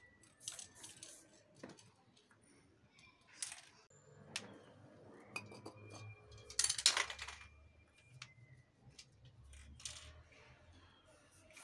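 Short hissing bursts of aerosol spray paint from a spray can, the longest and loudest a little past halfway, with metallic clinks and taps of the cans being handled in between.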